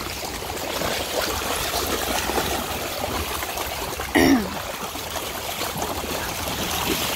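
Dogs wading and splashing through shallow sea water, a steady trickling slosh. About four seconds in comes one short voice-like sound that falls in pitch.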